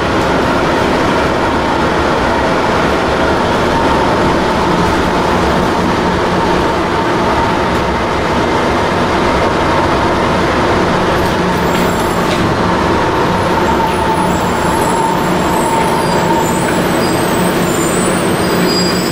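Airport tram car running, heard from inside the cabin: a steady rumble of wheels and drive with a held whine over it.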